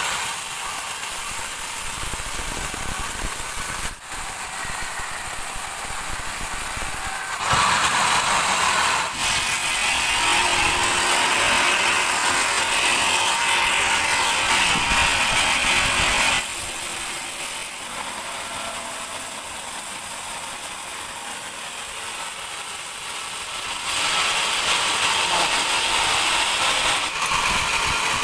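Sawmill band saw running, with two louder stretches while the blade cuts through a teak log: one from about a quarter of the way in to past the middle, and one near the end.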